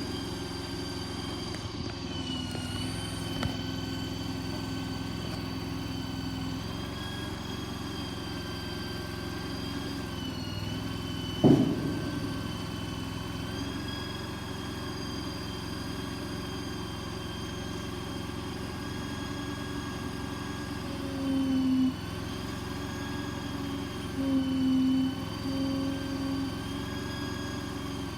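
Mini skid-steer loader's 23 hp Vanguard engine running steadily. There is one sharp clunk partway through, and in the last third two brief spells where a low hum grows louder.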